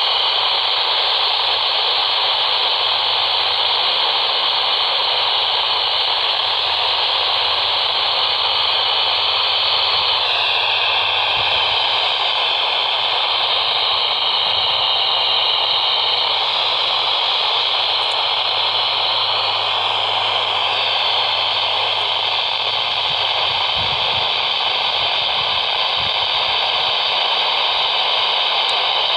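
Steady radio static: hiss from a radio receiver on a weak or empty signal, with a faint whistle in the hiss that shifts in pitch about ten seconds in.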